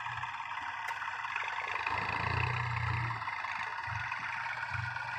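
Diesel tractor engines working under load in deep sand, a front-loader tractor pushing another tractor from behind. The low engine rumble swells about two seconds in, then pulses twice near the end.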